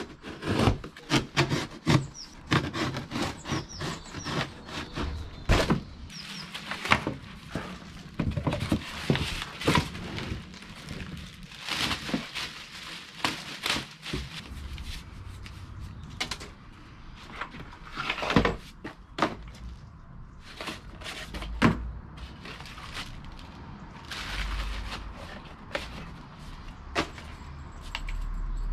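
Unboxing an electric scooter: cardboard, polystyrene packing blocks and the scooter's parts knocking and scraping, with plastic wrap rustling, in an irregular run of knocks and rustles.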